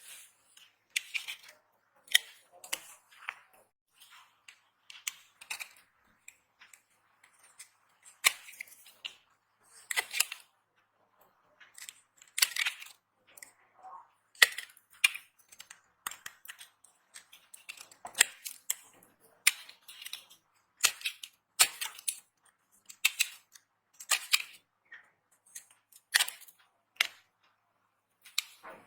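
Dry bar soap being cut and crushed: a string of crisp crunches and snaps at uneven intervals, some sharper and louder than others.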